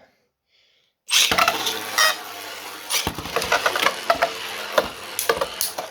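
3D-printed Beyblade tops launched into the stadium about a second in, then spinning and scraping across the stadium floor, with repeated sharp clacks as they strike each other.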